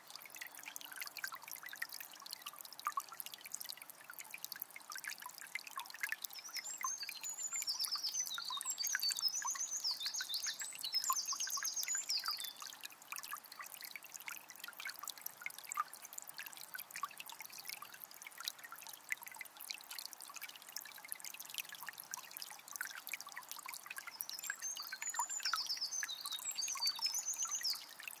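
Forest river flowing with a steady trickling, splashing rush. A songbird sings twice over it, a run of quick trilled phrases from about a quarter of the way in to almost halfway, then a shorter run near the end.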